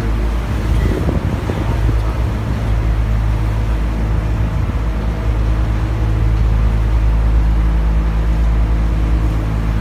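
Passenger boat's engine running at a steady cruising speed, heard from inside the cabin as a loud, even low drone with a steady hum.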